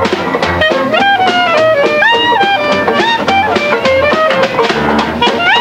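Instrumental background music: a melody with notes that slide up in pitch, over a low bass line.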